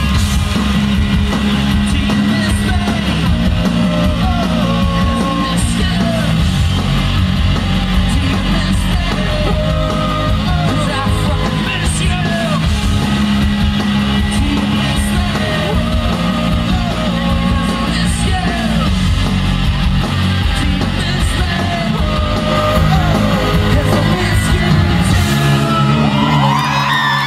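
Live rock band playing loudly, heard from within the audience: singing over distorted guitars, bass and drums in a boomy club room. Near the end the bass thins out and the crowd shouts and whoops.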